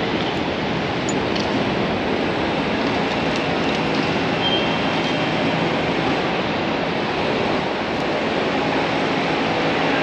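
Airport terminal curbside ambience: a steady wash of traffic and car engine noise from the drop-off lanes, with a few faint clicks and a brief high beep about four and a half seconds in.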